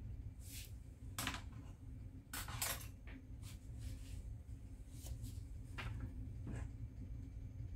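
Light, scattered clicks and brief scrapes of small parts, tweezers and a tissue being handled on a wooden desk, about a dozen in all, over a steady low hum.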